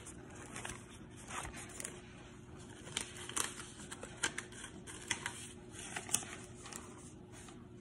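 Soft rustling and light clicks of a trading card being handled in a clear plastic sleeve and paper, with a few sharper ticks scattered through.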